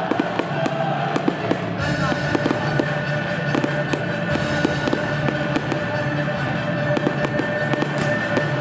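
Fireworks going off: a rapid series of bangs and crackles, with music playing alongside.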